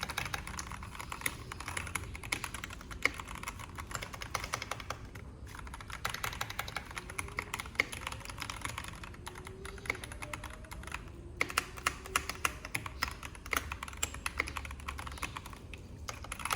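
Fast typing on a Keychron K2 Pro mechanical keyboard with brown switches: a dense run of keystrokes with a few short pauses.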